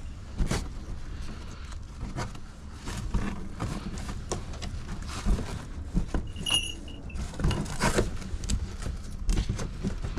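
Irregular knocks, clicks and rattles of hawk travel boxes and gear being handled, with one brief high squeak about six and a half seconds in.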